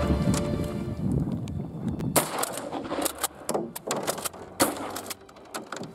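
Background music fading out over the first second or two, then sharp shotgun reports. The loudest come about two seconds in and again about four and a half seconds in, with smaller clicks and knocks between.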